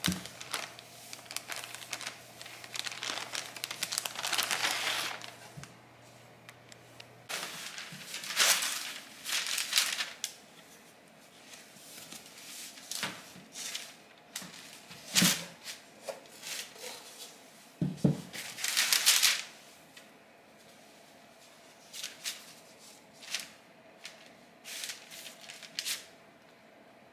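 Plastic zip-top bag crinkling as a banneton is pulled out of it, then parchment paper and a cloth liner rustling and crackling in short bursts as rye sourdough dough is turned out and handled, with a soft thump about two-thirds of the way through.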